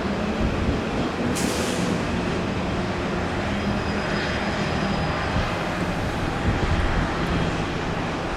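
Heavy construction machinery running steadily: the diesel engine of a concrete pump truck pumping concrete, with a low, even hum. A short hiss comes about a second and a half in.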